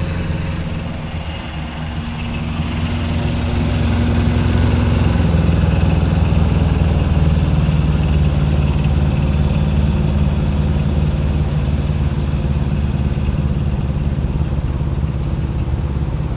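A steady, low engine hum that swells and shifts pitch slightly about four seconds in, then holds.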